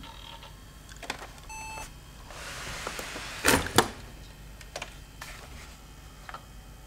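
A Toshiba Satellite Pro 440CDT laptop gives one short electronic beep from its internal speaker at start-up. A brief hiss follows, then two sharp clicks as the lid is raised.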